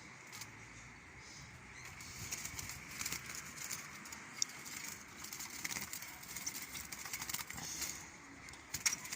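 Scattered clicks and rustles of a wire bird cage being handled as its door is opened, with the caged bulbul's wings fluttering.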